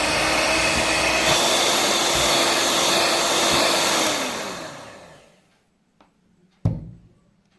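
Electric mixer motor running steadily as it beats egg, sugar and vanilla cake batter, then switched off about four seconds in, its pitch falling as it winds down. A sharp knock comes a couple of seconds later.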